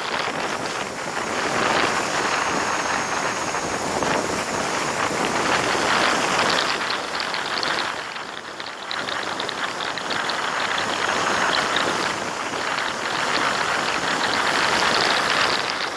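Wind rushing over the microphone of a moving vehicle, mixed with road noise, swelling and easing every few seconds with no clear engine note.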